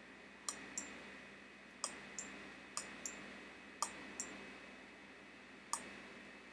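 Sharp clicks of a computer pointing-device button, mostly in pairs about a third of a second apart, four pairs and then a single click near the end. A faint steady electrical hum runs underneath.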